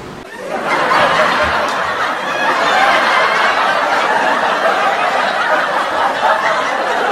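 Canned audience laughter, many people laughing at once. It starts suddenly just after the start and carries on steadily.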